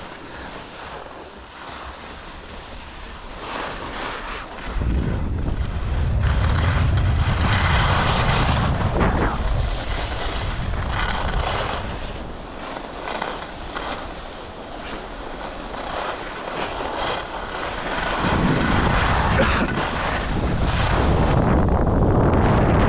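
Skis scraping and sliding sideways over hard-packed race-course snow as a skier side-slips down the slope, with wind buffeting the microphone. The scraping starts softly, grows much louder about five seconds in, eases off in the middle and builds again near the end.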